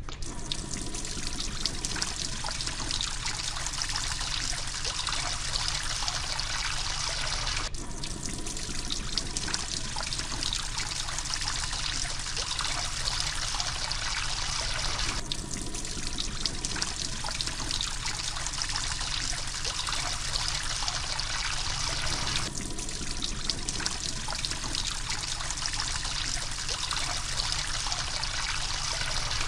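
Water fountain splashing and trickling steadily, as a looped sound effect that restarts about every seven and a half seconds.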